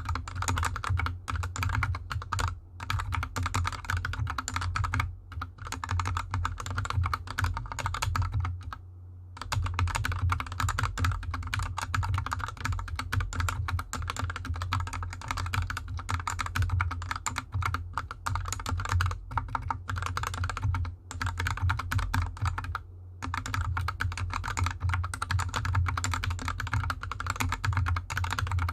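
Steady fast typing on a hot-swap 60% mechanical keyboard with Gateron Yellow linear switches lubed with Krytox 205g0 and DSA keycaps, set on a desk mat: a dense run of key clacks, broken by two short pauses.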